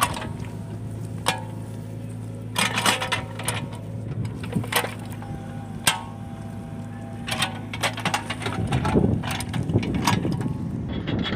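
Compact excavator's diesel engine running steadily, with repeated sharp metallic clanks and knocks from the machine working in wet soil. Near the end the steady engine note gives way to a rougher, noisier rumble.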